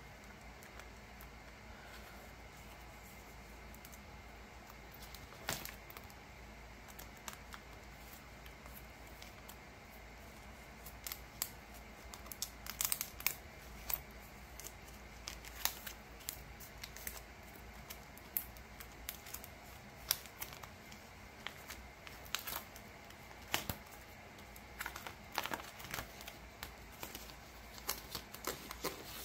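Photocards being handled and slipped into plastic binder sleeves: scattered crinkles, clicks and rustles of card and plastic. They are sparse for the first ten seconds or so, then come thick and fast, over a faint steady hum.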